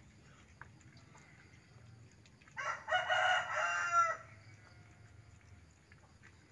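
A rooster crowing once, a call about a second and a half long starting past the middle, well above the low background.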